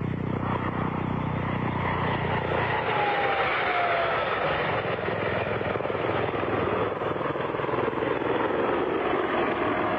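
Helicopter flying low past the microphone. A steady rotor beat for the first two seconds or so gives way to a broad rush of rotor and engine noise, with a turbine whine that drops in pitch as the helicopter goes by.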